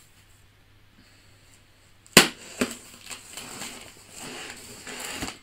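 Utility knife cutting the packing tape along the top seam of a cardboard box. A sharp snap about two seconds in, then the blade scraping and rasping along the tape and cardboard, with a few smaller clicks.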